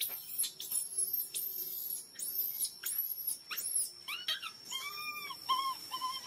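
Baby macaque crying to nurse: a rapid run of very high-pitched squealing calls, each rising and falling. About four seconds in, these give way to several lower, shorter wavering cries.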